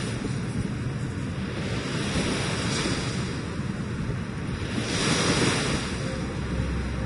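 Sea waves washing gently onto the beach, swelling louder about three and five seconds in, with wind on the microphone.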